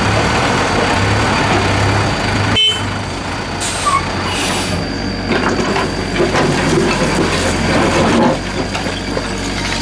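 Diesel engine of a Doosan DX55W wheeled excavator running, with many short knocks and clatters of brick and stone rubble as its bucket works the pile in the second half.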